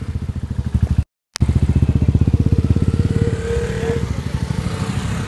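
Motorcycles riding past one after another, their engines running with a rapid, even exhaust beat. The sound cuts out completely for a moment about a second in.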